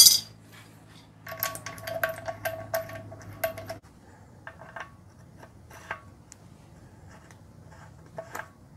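Metal clinks and clicks of a socket and bolts being handled and fitted by hand on an engine. A quick run of ringing clinks comes in the first few seconds, then scattered lighter clicks.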